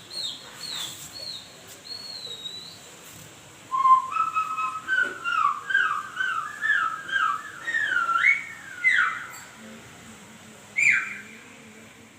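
A run of whistle-like calls, each sliding up or down in pitch, coming quickly one after another for about five seconds, then a single falling whistle near the end.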